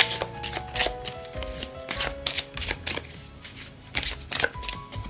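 Oracle card deck being shuffled by hand: a rapid, irregular run of crisp card clicks and slaps, with background music underneath.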